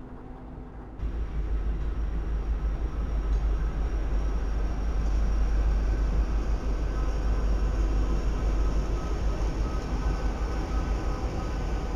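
Norfolk Southern diesel freight locomotives passing close with a steady low rumble, growing abruptly louder about a second in.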